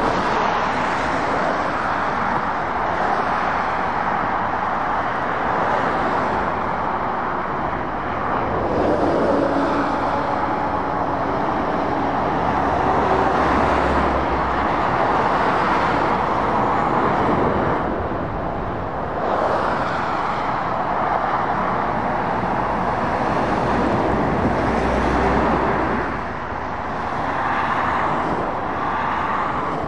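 Dual-carriageway traffic going by, lorries and cars, its tyre and engine noise swelling and fading as each vehicle passes. A deeper rumble builds about nine seconds in and again around twenty-five seconds.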